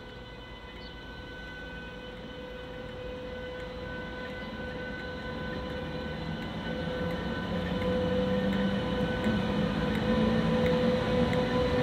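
A railway locomotive approaching, its engine hum and steady whine growing louder throughout.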